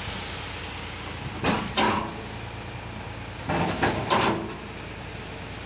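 Tractor-drawn tipping trolley unloading sand: the engine running steadily under the hiss of sand pouring out from under the tailgate, with two pairs of short clunks, about one and a half seconds in and again around three and a half seconds in.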